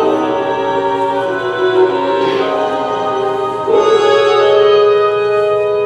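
Slow music of long held notes, changing to a new sustained chord a little before four seconds in.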